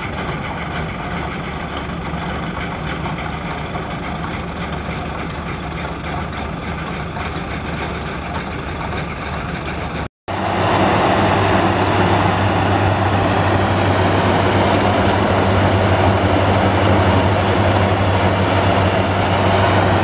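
Sumo Crown rice combine harvester running steadily as it cuts rice, a steady engine hum. About halfway through the sound drops out for a split second and comes back louder, with a stronger low hum.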